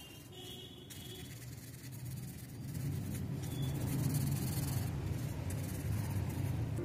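A soft brush rubbing over drawing paper, blending graphite shading, growing louder about two and a half seconds in.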